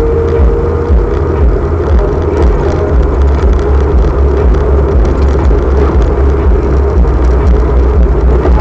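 Car driving on a paved road, heard from inside the cabin: continuous engine and road noise dominated by a loud low rumble.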